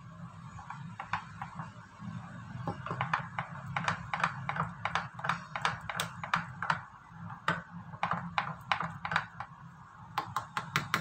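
Wooden spoon tapping and scraping against the sides of a plastic blender cup while stirring a thick smoothie: repeated irregular taps, a few a second, starting about a second in.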